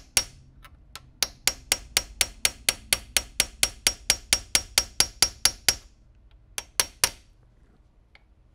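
Small 2-ounce ball-peen hammer tapping a steel punch set in the rear corner of a 1911 pistol's frame rail, in a fast even run of light ringing metallic taps, about five a second, then three more after a short pause. The taps are peening the frame rails down to take up the slide's play.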